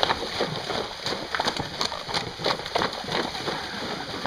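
Horses wading through shallow floodwater, their hooves splashing in a quick, uneven run of strikes and sprays.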